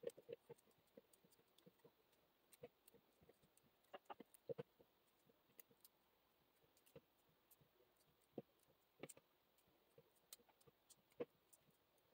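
Near silence, broken by faint, irregular soft taps and clicks as red grapes are plucked from the bunch and dropped into a plastic mixing bowl of fruit.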